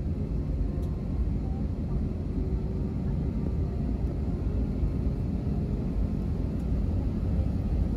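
Steady low rumble inside the cabin of an Airbus airliner, with faint voices in the background.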